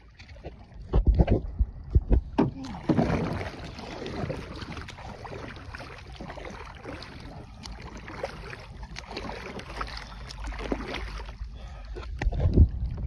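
Water splashing and sloshing around a swimmer in the water beside a swamped sea kayak. There are a few loud thumps in the first three seconds.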